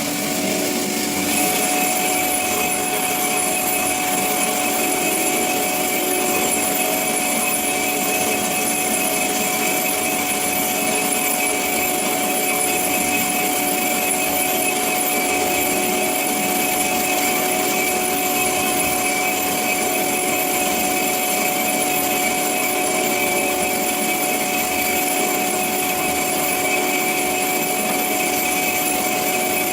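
CORMAK S-200R semi-automatic metal band saw running steadily, its blade cutting metal stock, a continuous whine made of several steady tones over a noisy hiss. Higher tones join about a second and a half in.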